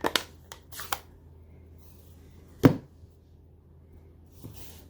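Stamping supplies being handled on a craft table: a few light taps and clicks, then one sharp knock about two and a half seconds in.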